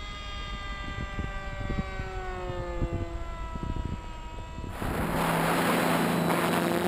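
A model aircraft's motor and propeller whine, gliding slowly down in pitch as it passes. About three-quarters of the way through it cuts abruptly to a louder rushing noise with a steady, lower motor hum.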